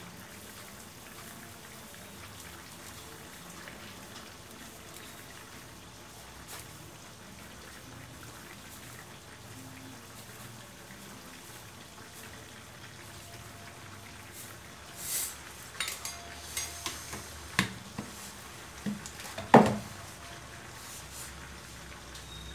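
Kitchen utensils at work: a low steady background for the first half, then a short scraping rush and a run of sharp clicks and knocks as a spoon and a wooden spatula hit a tin can and a metal wok, the loudest knock near the end.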